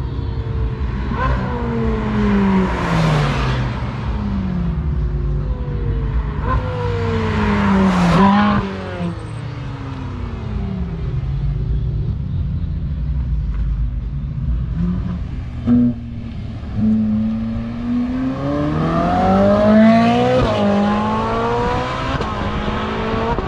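Ferrari 458's naturally aspirated V8 accelerating and revving as it passes, its pitch sweeping up and down several times. The closest pass comes about 8 seconds in and drops sharply in pitch. Near the end the engine pulls hard, climbing in pitch through quick upshifts.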